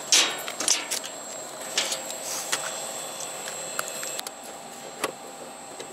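A key turning in a padlock and the metal door of a gas-cylinder cabinet being opened: a few sharp metallic clicks and scrapes, the loudest right at the start and the rest spread over the next few seconds.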